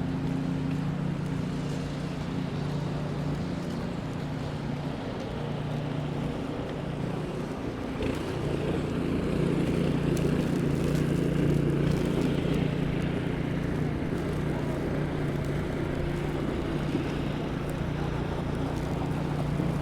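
Street traffic: a steady low engine hum, with a wash of vehicle noise that grows louder about eight seconds in.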